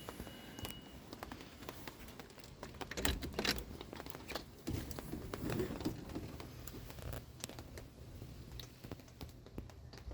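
Irregular rustling and crinkling with light clicks and knocks, the sound of things being handled in a small room.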